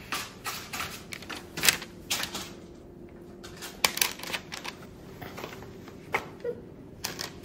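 Parchment paper crinkling with irregular light taps as balls of cookie dough are set down and pressed on a lined baking sheet.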